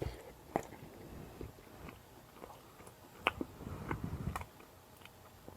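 Someone chewing a mouthful of microwaved meat pie with tomato sauce, soft mouth sounds with a few faint sharp clicks.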